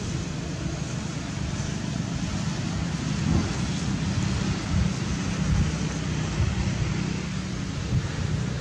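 Wind buffeting the microphone: a gusty low rumble that rises and falls, over a steady outdoor hiss.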